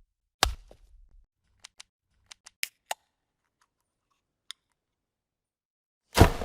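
Video-editing transition sound effects. A sharp hit comes first, then a quick run of six short clicks and a single tick, and a loud impact with a fading tail near the end.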